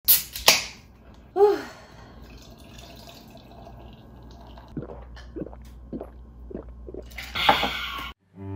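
Aluminium beer can snapped open with a sharp crack and hiss, then beer poured into a glass, fizzing and glugging out of the can in a run of about six short glugs. A loud breathy exclamation near the end.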